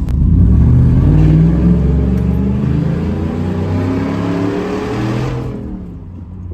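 Ford 5.0 V8 of a 2018 F-150, running on a custom cat-back exhaust and accelerating, heard from inside the cab; the exhaust note climbs in pitch and then dies away about five and a half seconds in.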